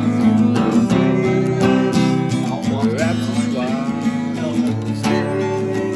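Acoustic guitar strummed in chords, the strokes ringing on one into the next.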